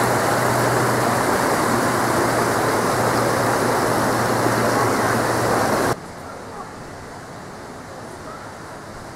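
Stream rushing over small falls, a loud steady hiss with a low hum beneath it, cut off suddenly about six seconds in, leaving a much quieter outdoor background.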